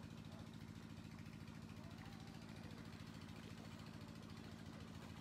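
Faint, steady low hum of an idling engine, with a rapid even pulse.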